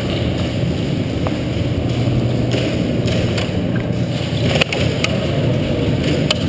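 Steady low rumble of movement and handling noise on a body-worn camera, with a few sharp clicks, the clearest about halfway through and just before the end.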